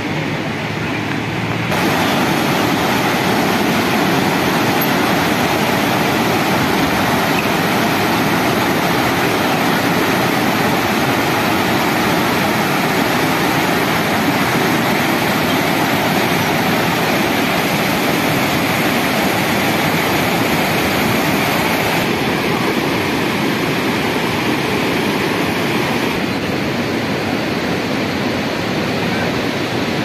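Whitewater rapids of the Kunhar River rushing over rocks, a loud, steady rush of water that grows louder about two seconds in.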